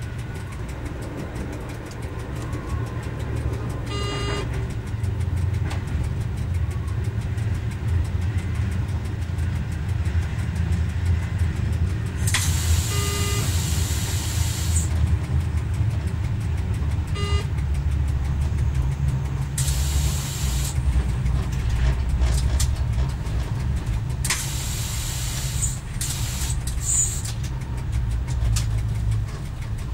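Volvo diesel engine of a rebuilt Y1 railcar running steadily, heard from the driver's cab while under way. A few brief pitched tones and several bursts of hiss, the longest lasting two to three seconds, sound over the engine.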